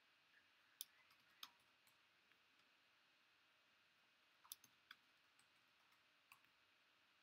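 Near silence broken by a few faint, sharp clicks, about six in all, the most in a cluster about four and a half seconds in.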